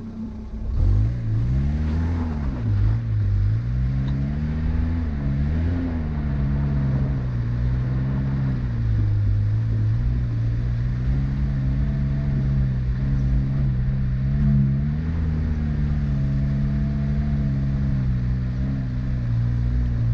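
A car engine picks up about a second in, its revs rising and falling several times, then runs at fairly steady revs under load.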